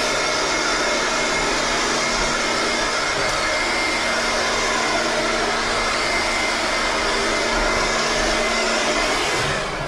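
Bauer 20-volt cordless leaf blower running steadily, a rush of air with a steady whine, then winding down and fading just before the end as it cuts out, which the owner puts down to a flat battery.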